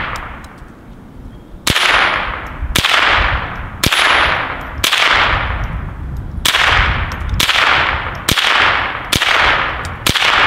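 Ruger Charger .22 LR semi-automatic pistol firing about nine single shots roughly a second apart, with a slightly longer pause midway. Each shot trails off in a long echo.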